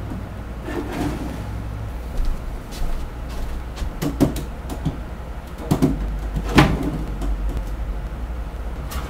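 Wooden shelf panels knocking and bumping as they are handled and fitted into a shelving unit, a few separate knocks with the loudest about two-thirds of the way through, over a steady low hum.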